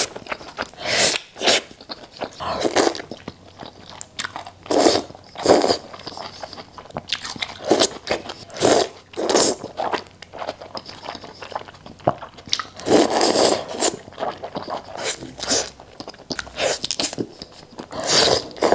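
A person eating close to the microphone: crunchy bites and chewing in irregular bursts, about one every second or so.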